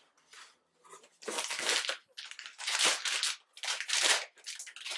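Crinkly plastic snack bags rustling and crinkling as they are handled and lifted out of a cardboard box, in irregular bursts starting about a second in.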